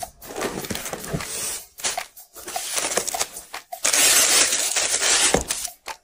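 Paper and plastic packaging rustling and crinkling in irregular handfuls as a new handbag is unwrapped. The loudest stretch is dense crinkling of plastic wrap, starting about four seconds in and lasting over a second.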